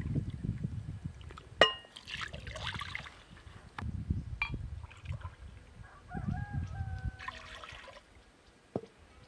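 Water poured from a glass pitcher into a drinking glass and a glass mixing bowl, with a sharp glass clink about a second and a half in. A rooster crows once about six seconds in.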